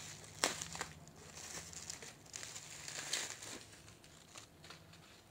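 Plastic bubble wrap crinkling and rustling as it is pulled off a deck of playing cards, with sharp crackles about half a second in and again around three seconds, dying down near the end.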